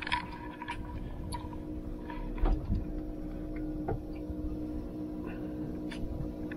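Steady mechanical hum of several even tones, with scattered light knocks and one louder thump about two and a half seconds in.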